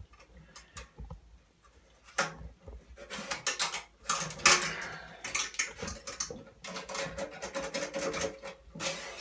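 Irregular light clicks, knocks and scrapes of a brass French horn being handled while a flexible cleaning snake is drawn through its tubing, mostly from about two seconds in.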